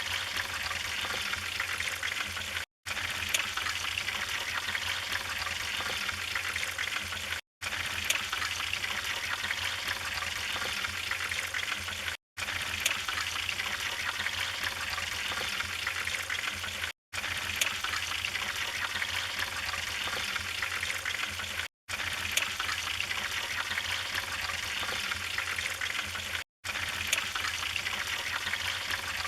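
Wood fire crackling steadily, with occasional sharp pops. The sound cuts out to silence for an instant about every five seconds, six times in all, where a short recording loops.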